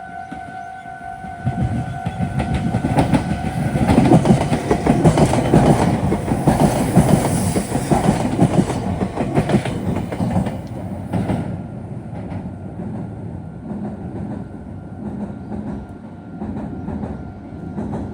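Meitetsu electric train passing over the junction's points and crossing, its wheels clattering loudly for several seconds before easing into a fading rumble. A level crossing warning alarm sounds as a steady two-pitch tone at the start and comes back near the end.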